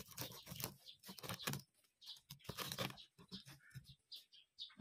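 A knife cutting through the crackling, deep-fried skin of lechon kawali (crispy pork belly): a fast, irregular run of crisp crunches, with a short pause about two seconds in. The crunching is the sign of well-crisped skin.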